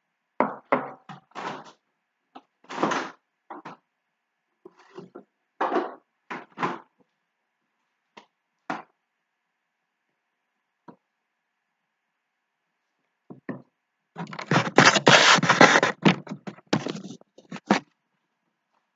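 Handling noises: a run of short knocks and thuds as a drinking glass and a carton of coconut milk are handled and set down on a countertop. About three-quarters of the way through come a couple of seconds of dense clatter and rubbing.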